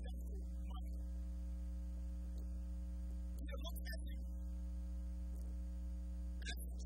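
Steady electrical mains hum, a low, even buzz with several overtones and no other prominent sound.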